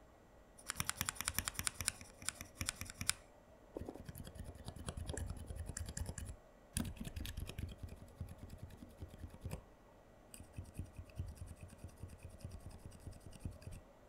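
Mechanical keyboard switches in a switch tester being pressed rapidly: Zeal PC linear switches, the Tealios V2 and the silent Sakurios, Roselios and Healios with silencing bumpers on the top and bottom of the stem. The quiet, muted key clacks come in four runs of quick presses with short pauses between them.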